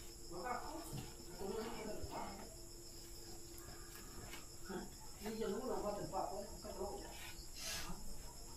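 Steady high-pitched insect chorus of crickets, with faint, brief vocal sounds now and then underneath.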